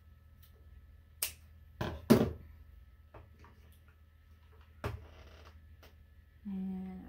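Craft supplies handled on a tabletop: a few sharp clicks and knocks, the loudest about two seconds in, and a brief rustle around five seconds in as jute rope is untwisted and a hot glue gun is brought in. A short hummed voice near the end.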